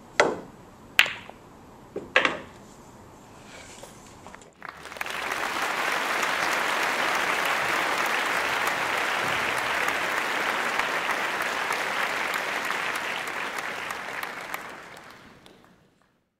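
A pool cue strikes the cue ball and billiard balls knock together: three sharp clacks in the first two and a half seconds. About five seconds in, applause starts abruptly, runs for about ten seconds and fades out near the end.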